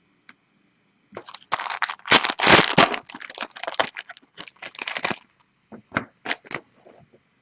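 Crinkly plastic wrapping on a trading-card box or pack being torn open and crumpled, a dense run of crackling and tearing followed by a few separate crinkles near the end.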